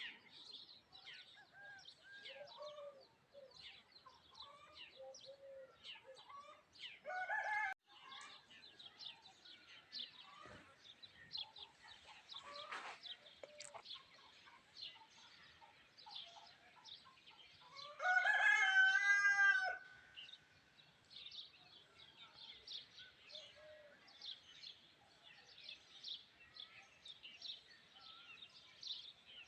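Rural bird ambience: many small birds chirping faintly throughout. A rooster crows loudly once about 18 seconds in, and a shorter loud call comes about 7 seconds in.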